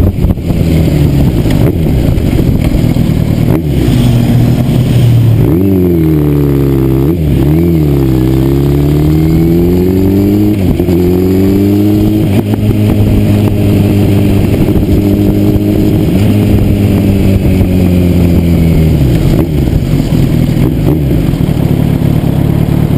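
Motorcycle engine under way, heard from the bike itself with heavy wind rush on the microphone. The revs rise and drop sharply several times between about five and eleven seconds in. The engine then holds a steady note and eases off near the end.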